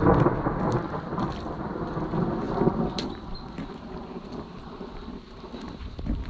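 A rumble of thunder that swells suddenly at the start and slowly fades over several seconds, with rain falling and scattered drops ticking close by.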